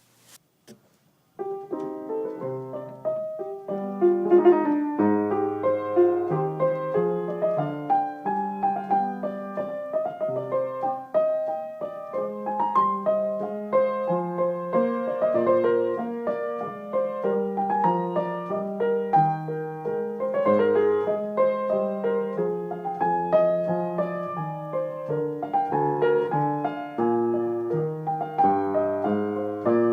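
Solo piano music: a flowing piece of chords under a melody, starting about a second and a half in.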